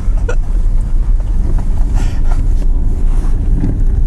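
Steady low rumble of engine and road noise inside the cabin of a moving Lada Kalina.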